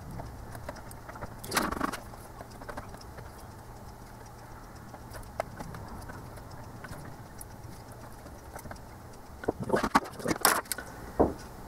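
Workbench handling noise during hand soldering: a steady low hum under mostly quiet work, a short scuffle about a second and a half in, and a cluster of knocks and rattles near the end as tools and solder are picked up and put down.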